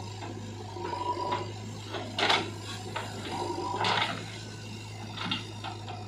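Diesel engine of a JCB 3DX backhoe loader running steadily while soil is tipped from its bucket into a tractor trolley. There are two loud rushes of falling earth about two and four seconds in, and a smaller one near the end.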